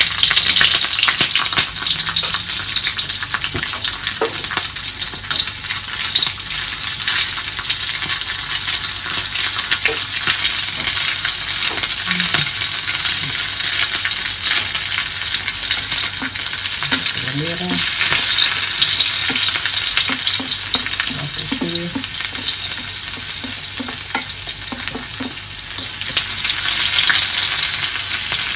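Dried anchovies (ikan bilis) frying in hot oil in a wok, a steady sizzle full of fine crackles as they crisp. A spatula stirs them in the wok at times.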